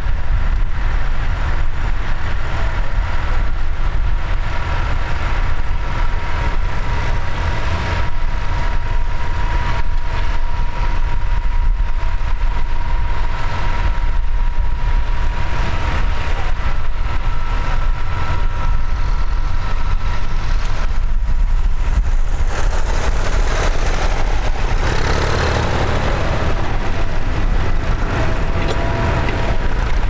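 A McCormick tractor's diesel engine running steadily as it pulls a reversible plough through the ground, with a thin steady whine over the deep engine rumble for much of the time.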